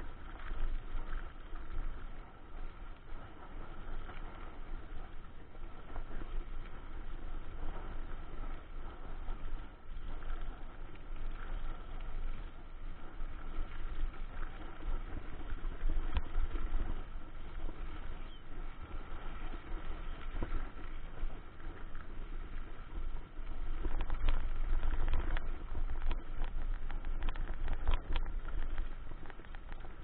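Ride noise from a camera mounted on a mountain bike rolling along a gravel road: wind rumbling on the microphone over tyre noise, with scattered clicks and knocks from the bike and mount. It gets louder and bumpier in the last few seconds.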